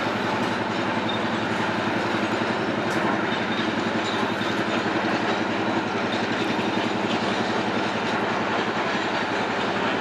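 A vehicle running steadily, with a fast, even mechanical pulsing.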